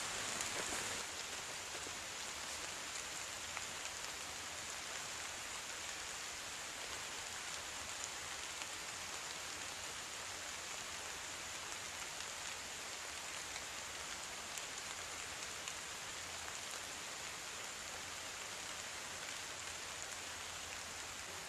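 Steady rain falling in woodland, an even hiss with a few faint ticks of drops.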